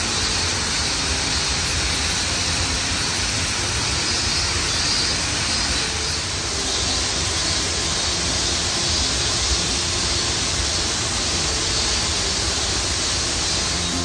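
Steady rushing of water falling from a waterfall, even and unbroken.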